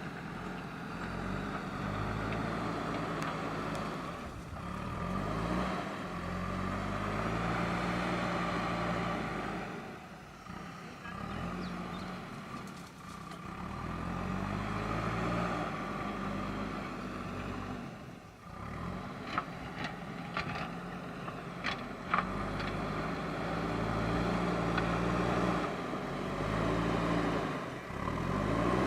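JCB backhoe loader's diesel engine working, its pitch rising and falling again and again as the load comes on and eases off. A few sharp metallic knocks come about two-thirds of the way through.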